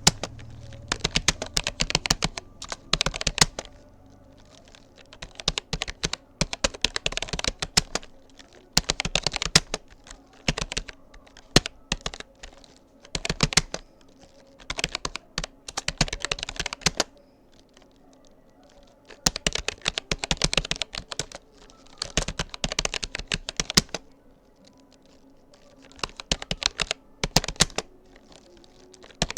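Typing on a computer keyboard in bursts of rapid key clicks a few seconds long, broken by short pauses.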